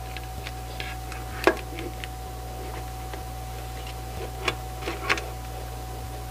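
A few sharp plastic clicks from a CD jewel case, its disc and booklet being handled: one about a second and a half in and two more near the end, over a steady low hum.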